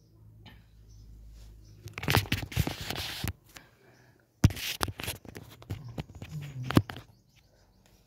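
Handling noise of a phone rubbed and scraped against its own microphone while it is moved, in two bursts, the first about two seconds in and the second from about four and a half seconds, with a few sharp knocks.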